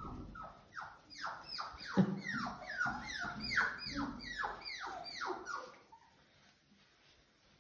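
Cockapoo puppy giving a rapid string of whining yelps, each falling in pitch, about three a second, stopping about six seconds in.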